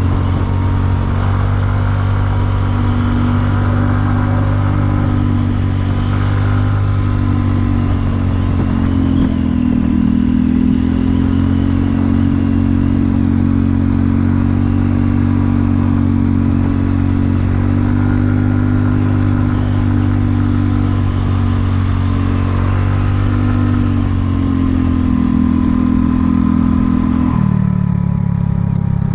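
Kymco People 250 scooter's single-cylinder four-stroke engine running under way, its pitch rising and falling with the throttle and dropping suddenly near the end as the revs fall. Its exhaust leaks have been sealed with JB Weld high-heat epoxy, and it is running quiet.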